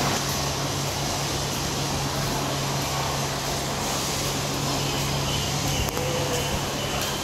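Steady ambient noise of a busy food court hall: an even low hum under a constant wash of noise from fans and the crowd of diners.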